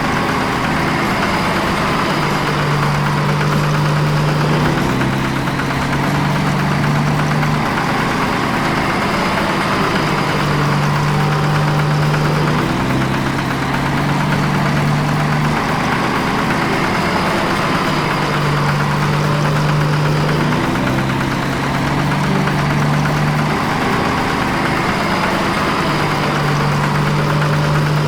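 Animated farm vehicle's engine sound effect, running steadily like an idling engine with a fast chugging rhythm. Its low hum steps back and forth between two pitches every couple of seconds in a repeating loop.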